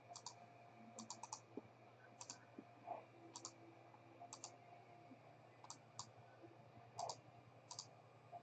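Faint, scattered clicks of a computer mouse and keyboard, often in quick runs of two to four, over a faint low hum.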